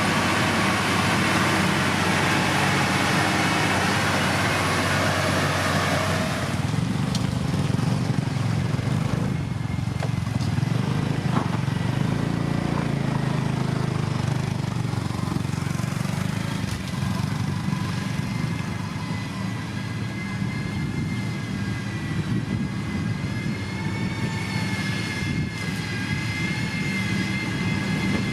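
Diesel engine of a heavy road-building machine running steadily under work. It is louder, with a rushing hiss, for about the first six seconds, then settles lower, and a steady high whine comes in over the engine in the second half.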